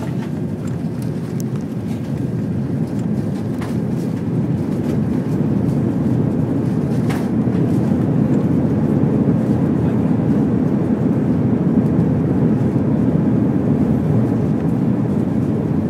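Airliner cabin noise on the landing roll: a steady low roar of engines and runway that builds over the first half and eases slightly near the end, with a couple of brief sharp rattles.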